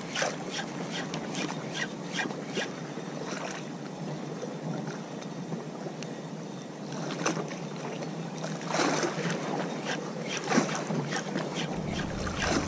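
Wind with choppy water lapping and slapping in short, irregular splashes. Near the end a low wind rumble buffets the microphone.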